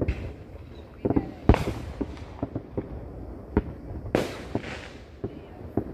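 Fireworks bursting: a run of about ten sharp bangs of varying loudness, the loudest about a second and a half in. The two biggest bursts, near the start and about four seconds in, trail off in a hiss.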